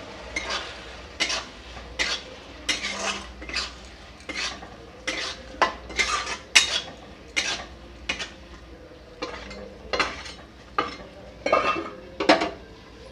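A spatula scraping and stirring thick frying masala in a metal kadhai, in irregular scrapes and clinks about one to two a second. The masala is being fried until the oil separates.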